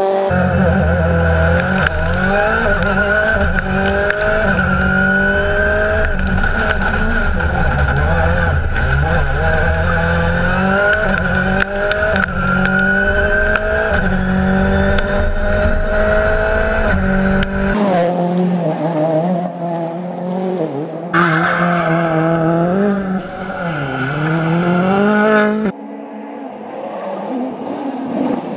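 Ford Fiesta RS WRC rally car's turbocharged four-cylinder engine at full throttle, its pitch climbing and dropping back at each quick gear change, again and again. In the last third the sound changes abruptly a few times, and the engine note dips and rises with braking and acceleration.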